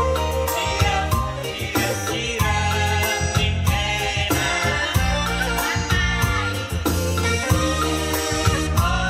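Live amplified band music with an electronic keyboard, a steady beat over heavy bass and a shaker-like percussion, and a voice singing into a microphone.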